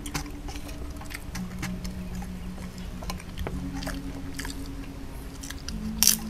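People eating a meal at a table: scattered light clicks of eating and chewing, with one sharper click near the end, over soft background music with long held low notes.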